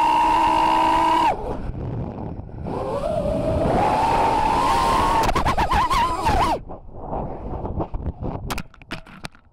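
FPV racing quadcopter's brushless motors and props whining, the pitch rising and falling with the throttle; the whine drops out about a second in, climbs back, wobbles, and cuts off about two-thirds of the way through. A few sharp knocks follow near the end.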